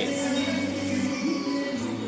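Background music with sustained instrumental tones.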